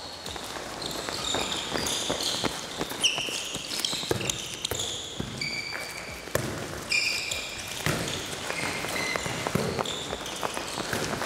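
Sports shoes squeaking in short, high chirps on a sports hall floor as handball players run and turn, mixed with the knocks of the ball being passed, caught and bounced and their footsteps.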